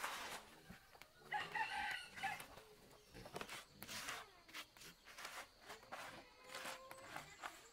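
A rooster crows once, about a second in, a single call lasting about a second. Hands rustle and scrape shredded plant material across a plastic tarp.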